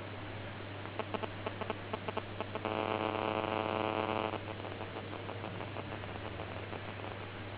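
Phone call ringing out to a GSM alarm unit: a quick run of clicks, then one long ringback tone ("гудок") from the phone before the unit answers and drops the call.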